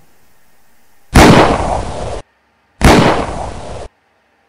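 Two loud booming crashes about a second and a half apart, each dying away for about a second and then cut off abruptly, over a faint hiss at the start.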